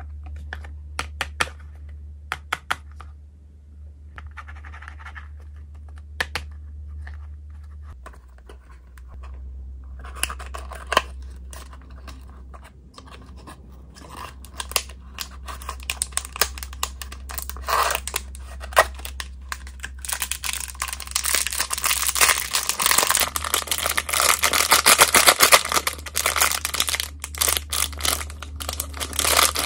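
Cardboard packaging handled close to the microphone: sharp clicks and taps as a small cardboard box is handled and its flaps opened, then from about ten seconds in a clear plastic bag holding a toy figure crinkling and rustling, louder in the second half. A steady low hum runs underneath.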